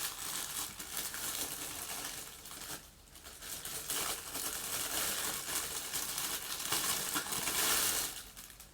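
Packaging crinkling and rustling as ring light parts are unwrapped by hand, with a short lull about three seconds in.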